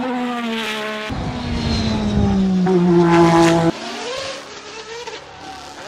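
Honda RA168E 1.5-litre twin-turbo V6 of a McLaren MP4/4 Formula 1 car running hard under load. Its note holds, then climbs to its loudest and cuts off abruptly about three and a half seconds in. After that it is quieter and revs up again.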